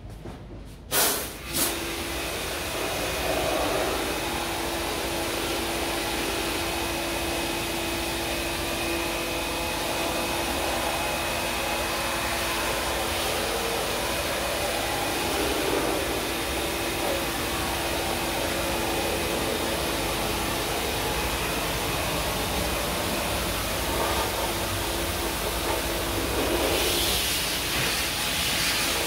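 Two clicks about a second in, then a high-pressure washer runs steadily: a motor hum under a constant hissing water spray, used to wash out an air conditioner. The hiss grows stronger near the end.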